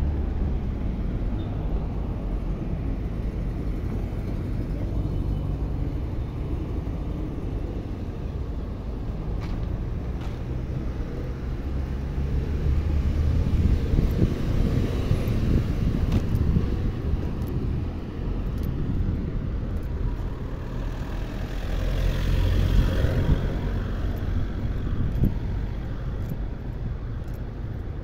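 Street traffic noise: a steady low rumble of road vehicles, swelling louder about halfway through and again near three quarters of the way through as cars go by.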